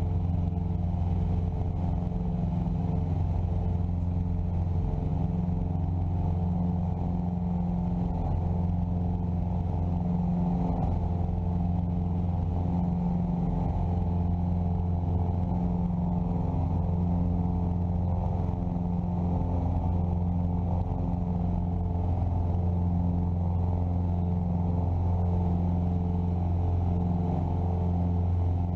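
Piper Seneca's twin piston engines and propellers running steadily at power in the cabin, with a slow, regular throb, as the aircraft climbs out after a missed approach.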